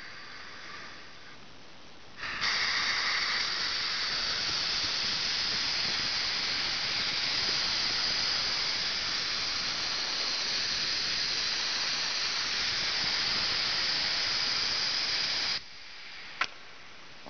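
Steady, loud hiss, like air rushing out under pressure. It starts abruptly about two seconds in and cuts off suddenly near the end, followed by a single sharp click.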